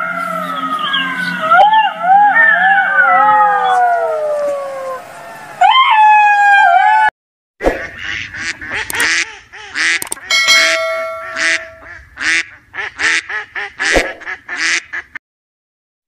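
Red fox giving several wavering, whining cries that slide down in pitch, then a sharp rising yelp. After a short silence, a flock of domestic ducks quacks busily for several seconds.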